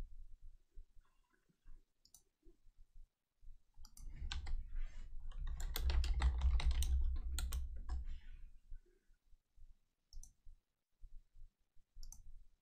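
Computer keyboard typing: a dense run of key clicks with dull thumps on the desk in the middle, and a few single clicks before and after.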